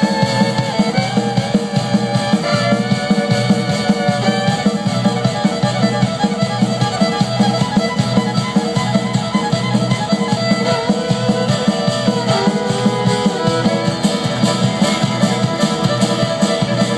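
Fiddle-led dance music with guitar accompaniment over a steady beat, playing without a break.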